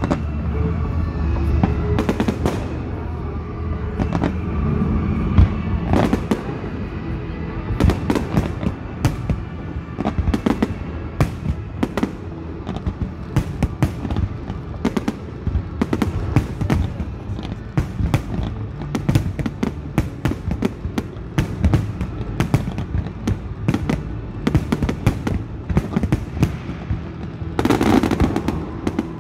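Fireworks display: aerial shells bursting in a rapid, continuous string of bangs and crackles, with ground fountains firing, and music playing underneath. The crackling thickens into a louder dense rush near the end.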